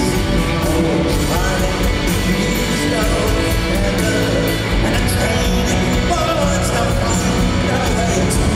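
Live rock band playing loud through a concert PA, heard from the audience: electric bass, guitar and drums, with a male lead voice singing over them at times.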